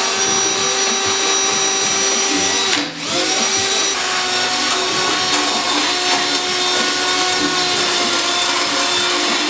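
Cordless drill running at speed with an attachment pressed against the engine bay's sheet metal, stripping old seam sealer: a steady motor whine over a rasping hiss. The trigger is let go for a moment about three seconds in, then the drill runs on.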